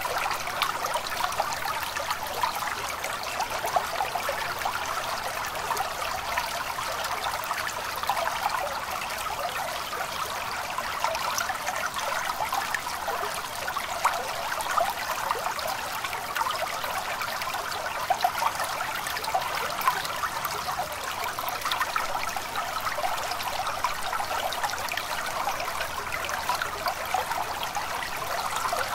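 A small stream trickling and babbling steadily, with a constant splashing rush that doesn't let up.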